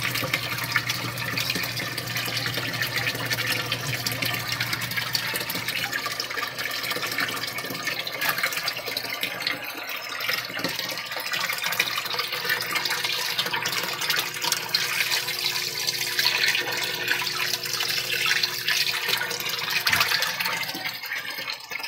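Water churning and splashing in a shallow tub of koi as a hand stirs the water and lifts the fish, over a steady rush of running water.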